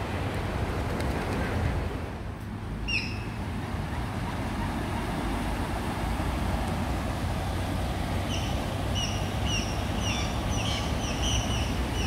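A steady low rumble throughout. A bird calls once about a quarter of the way in, then gives short, high chirps repeated about twice a second from two-thirds of the way in.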